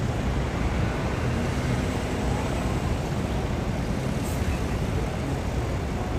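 Steady outdoor ambient noise with a low rumble.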